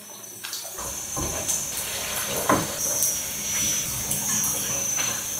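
Pieces of pork belly sizzling in hot frying oil, the hiss coming in just under a second in, with a few light knocks as they are lifted out of the pan.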